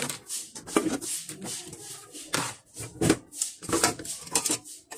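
Irregular knocks, clatter and rustling of household items being handled and set down on a kitchen counter, with several sharp strikes spread through.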